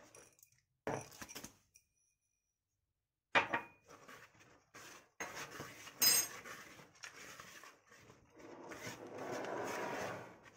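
Metal wire whisk stirring chocolate chips into dry flour in a plastic mixing bowl, knocking and clinking against the bowl. There is a sharp knock a few seconds in and a ringing clink midway, and near the end a longer stretch of steady scraping as the whisk works through the dry mixture.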